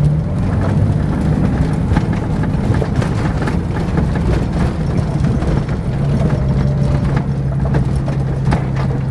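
Vehicle engine running at low speed, heard from inside the cab, with frequent knocks and rattles as the vehicle bounces over a rutted dirt track. The engine hum is strongest at the start and again from about six seconds on.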